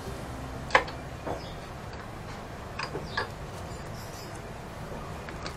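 A few light clicks and taps from hand tools and parts being handled on the scooter, over a low steady hum.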